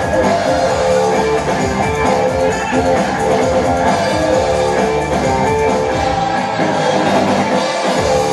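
Loud music plays steadily. The bass drops out for about a second and a half near the end, then comes back.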